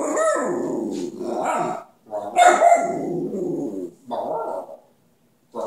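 Brindle puppy 'talking': wavering, drawn-out howl-like vocalizing in three bouts, two long and one short, with another starting just at the end.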